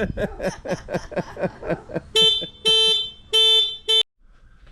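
Motorcycle horn beeped four times in short, quick blasts, after about two seconds of rapid laughing. The sound cuts off suddenly after the last beep.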